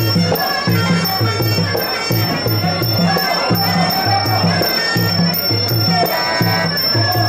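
Sarama, the traditional live music of Muay Thai fights: a reedy Javanese oboe (pi Java) playing a wavering melody over a steady, repeating drum beat with small cymbals.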